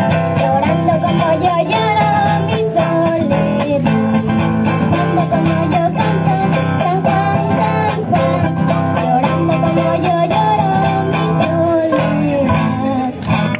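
A boy singing a melody into a microphone, accompanied by two guitars being strummed and picked.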